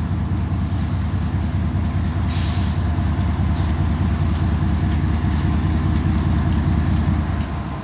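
Diesel locomotives leading an approaching double-stack container train, running with a loud, steady low rumble and faint steady whining tones above it. There is a brief hiss a little over two seconds in, and the low rumble drops away shortly before the end.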